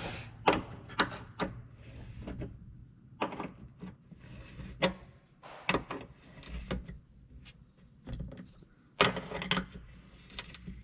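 Hand work on a tractor engine during reassembly: irregular clicks, knocks and rubbing as parts and tools are handled, with a cluster of sharper knocks about nine seconds in.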